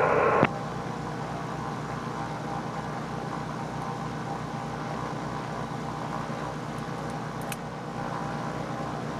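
Cessna 310Q twin piston engines idling steadily, with an even low throb.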